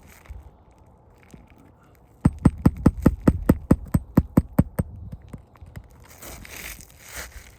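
A rapid run of about a dozen hard knocks, around five a second, then rough scraping: a tool being worked against an asphalt roof shingle to free it.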